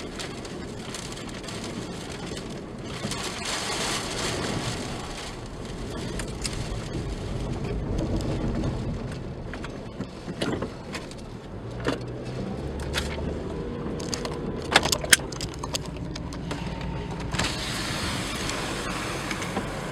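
Wind rushing over the microphone, with a car running and several sharp clicks and knocks in the second half.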